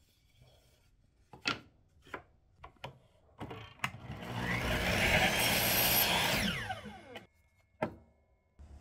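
Wooden strip knocking as it is set on a DeWalt miter saw, then the saw runs for about two and a half seconds, cutting the wood. Its blade then winds down with a falling whine, and a last knock comes near the end.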